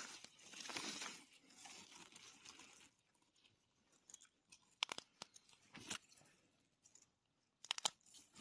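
Soft rustling of plants, then a scattering of short, sharp snaps as fern shoots are broken off by hand.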